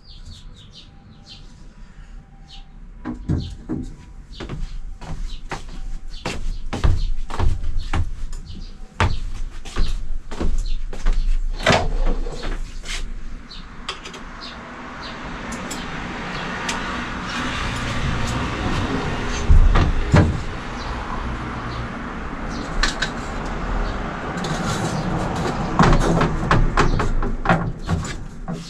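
Knocks, clicks and clatter from fitting-out work inside a microbus. About halfway in, a steady rushing noise starts and carries on under further knocks.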